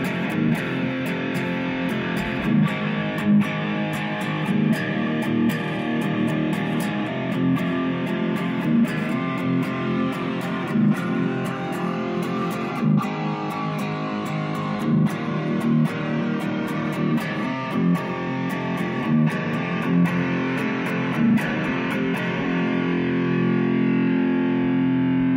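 Distorted electric guitar playing a rock part over a steady beat, ending on a chord held for the last few seconds.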